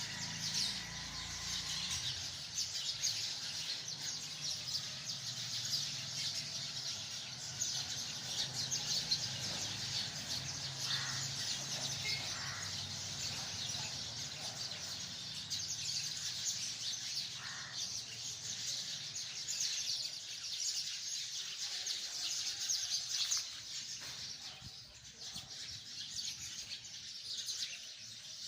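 A large flock of sparrows chirping together in a tree: a dense, continuous chorus of short high chirps that thins and quietens briefly near the end.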